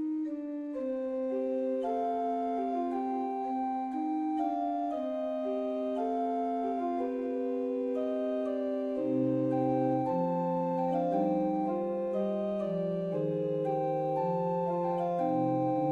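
Slow instrumental music of long held chords that change slowly, with a lower bass line coming in about nine seconds in.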